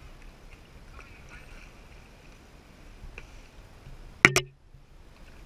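Faint ambience of an inflatable kayak on calm water, broken about four seconds in by one sharp, loud double knock, a hard bump against the boat or the camera.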